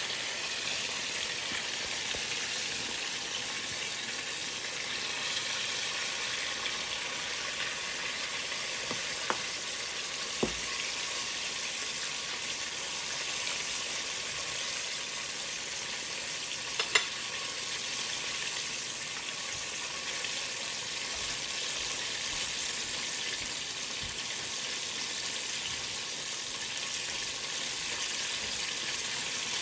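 Chicken wings deep-frying in a pot of hot oil, a steady sizzle: their second fry on high heat to crisp them. A few brief clicks, the loudest about 17 seconds in.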